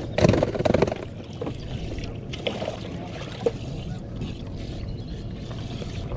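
Water sloshing and splashing in a bass boat's live well as largemouth bass are grabbed out by hand, with a louder stretch of splashing in the first second and a short knock about three and a half seconds in.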